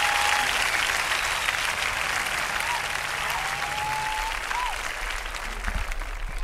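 Audience applause and cheering with a few whistles, slowly fading out.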